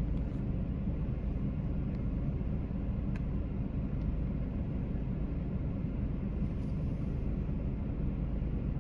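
Steady low vehicle rumble, even throughout, with no bell or horn.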